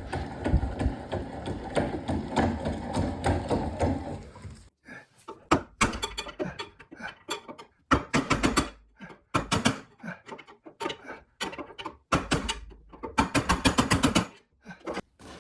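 Bench vise screw being cranked in and out, now turning freely after the repair. First comes a continuous rattling run, then a series of separate clicks and metal clanks from the vise's screw, jaw and sliding handle.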